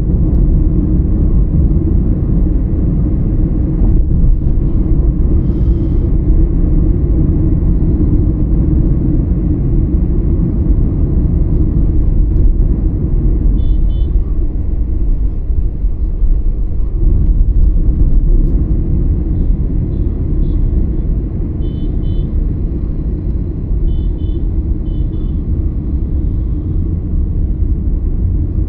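Steady low rumble of a road vehicle on the move, heard from on board, with a few faint short high chirps in the second half.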